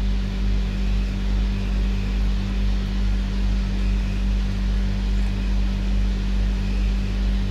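A steady low machine hum that holds level throughout.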